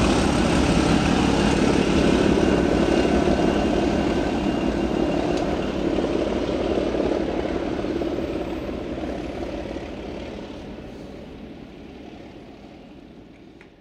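Class 37 diesel locomotive and its short loco-hauled train running away into the distance. The English Electric engine's drone and the rolling noise fade steadily until faint near the end.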